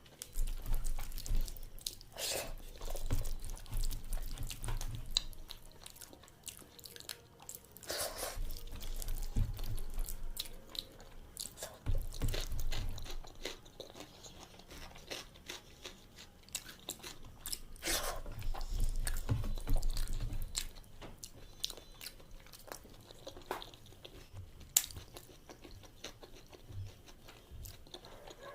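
A person chewing food close to the microphone, with wet mouth sounds and scattered crisp clicks and crunches, in uneven bursts.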